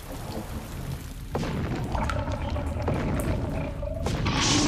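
Dragon sound effects in an animated film: a deep rumbling begins about a second in and builds, with a held tone over it. Near the end comes a rushing blast as the dragon breathes fire.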